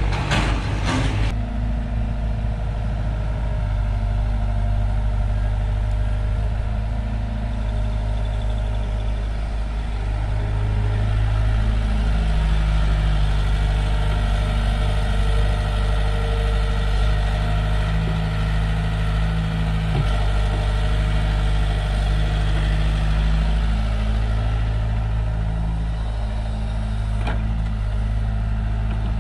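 Diesel engine of heavy earthmoving machinery running steadily, its note shifting up and down a few times as the load changes.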